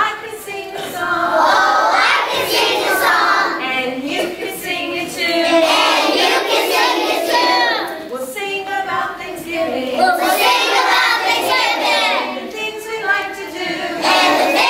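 A group of kindergarten children singing together, in phrases with short breaks between them.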